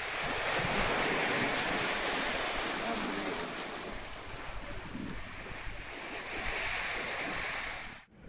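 Sea water rushing and splashing in the wake astern of a moving yacht, a steady shifting wash with some wind on the microphone.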